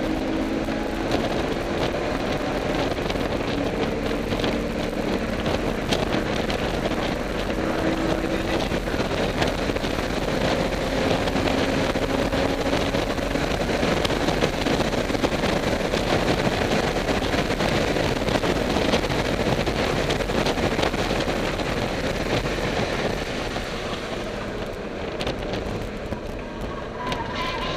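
BMW car engine running hard at speed, heard from inside the cabin under heavy wind and road noise; its pitch climbs slowly through the middle, and it eases off a little near the end.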